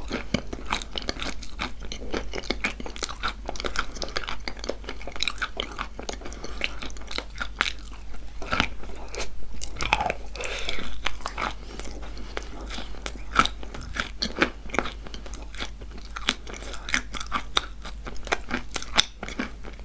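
Close-up chewing of wet, paste-coated chalk: continual crunching and crackling bites, irregular and dense.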